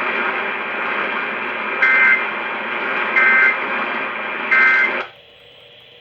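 Three short bursts of EAS digital data tones, the warbling SAME code sent at the end of an alert message, about 1.3 seconds apart over a steady radio hiss. The audio cuts off about five seconds in.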